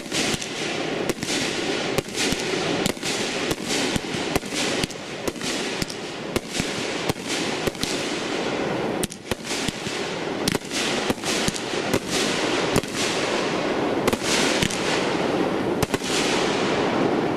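A World Class Fireworks Honey Badger 500-gram multi-shot cake firing a continuous barrage. Shots launch and burst in quick succession, about two bangs a second, over a constant hiss of the burning effects.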